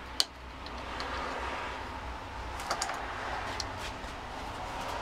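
Small hard clicks and taps from handling a plastic flux bottle and its screw cap on a workbench. One sharp click comes just after the start, and a few fainter clicks follow a couple of seconds later, over a low steady hum.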